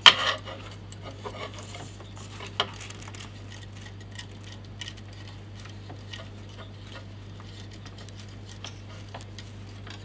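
Small metal fittings and a clear plastic eye shield being handled while the shield is fitted to a bench grinder: a sharp click right at the start, a few lighter clicks and taps over the next few seconds, then only faint ticks.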